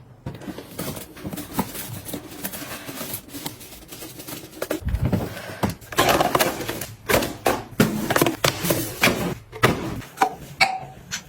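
Items and containers being handled, picked up and set down one after another: a steady stream of clicks, taps and rustles, busiest in the second half, with a brief ringing clink near the end.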